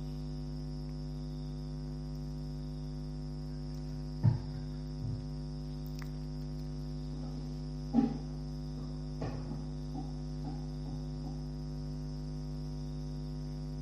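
Steady electrical mains hum on the microphone and sound system, a low buzz with many overtones. Faint brief sounds break in about four and eight seconds in.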